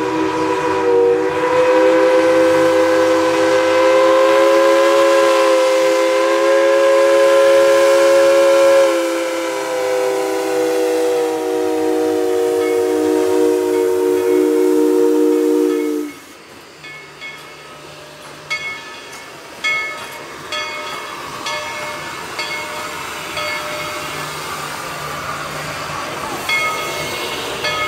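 Steam locomotive's multi-chime whistle blowing one long chord of several notes, sagging a little in pitch partway through, then cutting off sharply about halfway in. After that comes the train's running noise with steam hiss, and the locomotive bell ringing in short regular strikes.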